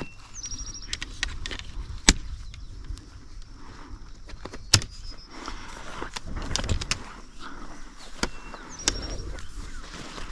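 Plastic quick-clips of a dome awning being snapped onto its poles: two sharp clicks about two seconds and nearly five seconds in, with lighter clicks, among the rustle of the awning fabric being handled. Wind rumbles low on the microphone.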